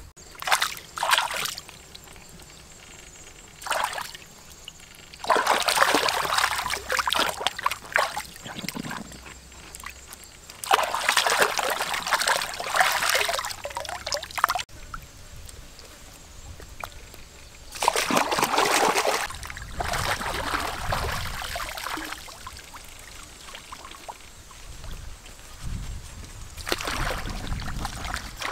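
Hands rinsing plucked chickens in a pond, the water sloshing and splashing in repeated bursts of a second or two with quieter gaps between.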